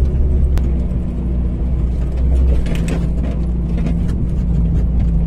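Toyota Lite Ace van's engine working hard to push through deep sand, a loud steady low drone with a few sharp knocks from the body.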